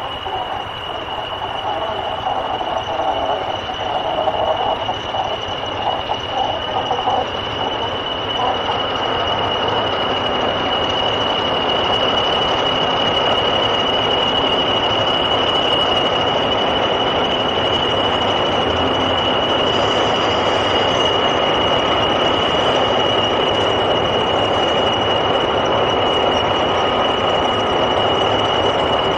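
English Electric Class 40 diesel locomotive running, with a steady high-pitched whistle throughout. The engine and train noise build over the first dozen seconds, then hold steady.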